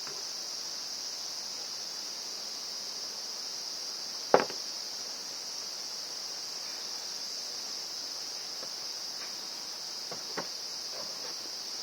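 Steady, high-pitched chirring of crickets or other insects, with one sharp click about four seconds in and a few fainter clicks near the end.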